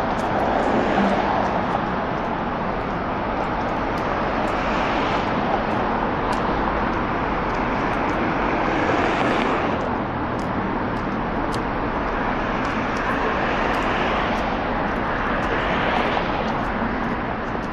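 Street traffic on a busy city road, with a steady wash of tyre and engine noise and several vehicles passing in swells that build and fade every few seconds.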